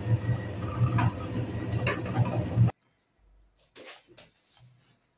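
Metal meat grinder running with a steady low hum and irregular clicks as it pushes colourful crumbly candy out of its plate. It cuts off abruptly about two and a half seconds in, leaving only faint rustling and clicks as the crumbs are handled.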